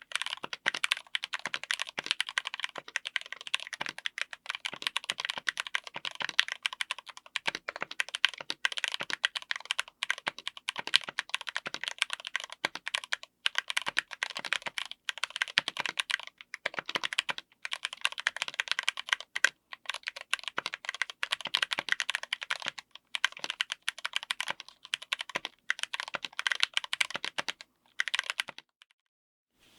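Fast, continuous typing on a mechanical keyboard with Gateron G Pro Yellow linear switches on an FR4 plate: a rapid, irregular stream of key clicks that stops shortly before the end.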